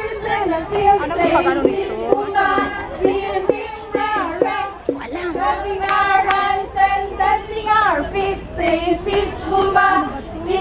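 A group of girls singing a cheer song in unison, holding notes in a repeating tune, with a run of sharp hits about three to five seconds in.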